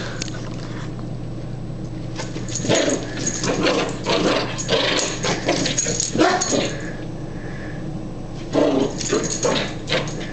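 A small dog making short vocal noises as it plays, in two spells: a longer run from about two to seven seconds in, and a shorter one near nine seconds.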